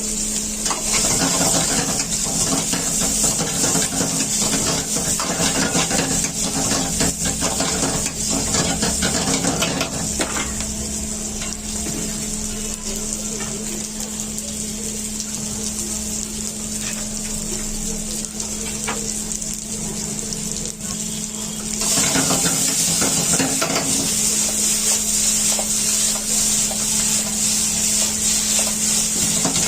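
Chicken frying and sizzling in oil in a pan while a metal ladle stirs and scrapes against it, over a steady low hum. The sizzle grows louder about two-thirds of the way through.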